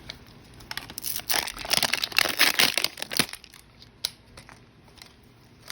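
Plastic wrapping crinkling and crackling as it is handled, from about a second in to just past three seconds, then a single click near four seconds.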